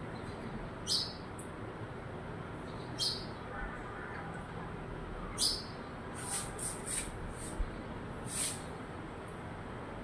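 A parrot giving short, shrill calls every second or two, with a quick run of them a little past the middle, over a steady background hiss.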